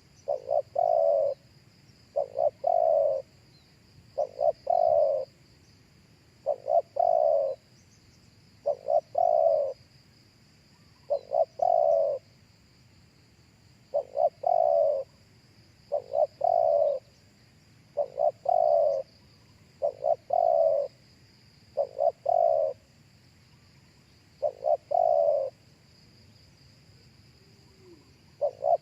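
Spotted dove calling: a repeated three-note coo, two short notes and then a longer falling one, given about every two seconds, with a longer pause near the end.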